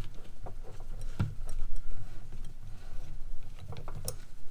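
Irregular clicks and clinks of chrome steel wrenches knocking together and against their plastic holder rack as one is worked out of it, with a sharper clink about a second in and another near the end.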